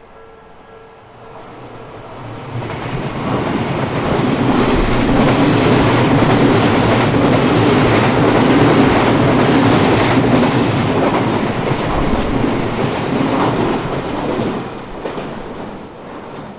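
An Odakyu electric train passes over a level crossing: its rumble builds over the first few seconds, stays loud with steady clickety-clack of wheels over the rails, then fades near the end. The crossing's warning bell rings at the start and is drowned out as the train arrives.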